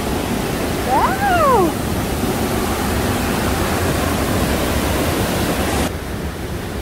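Kaaterskill Creek rapids: fast water rushing over rock ledges, a loud, steady rushing noise. About a second in, a person's brief exclamation rises and falls in pitch. Near the end the high hiss drops off suddenly.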